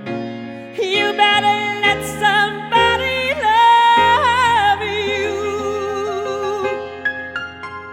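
Singer holding long, drawn-out notes with a wavering vibrato over a steady instrumental accompaniment, fading down near the end as the song closes.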